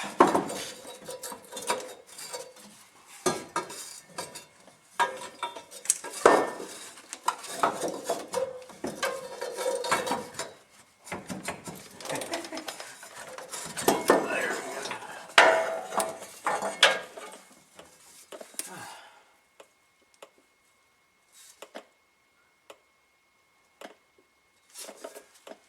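Metal tools and parts clanking and clinking as they are handled, with a ringing after many of the knocks. It is busy for most of the stretch, then dies down to a few scattered clicks near the end.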